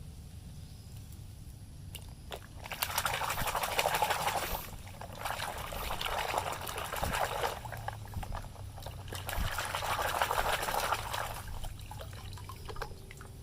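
Water pouring in three spells of about two seconds each, rinsing mud off a toy vehicle.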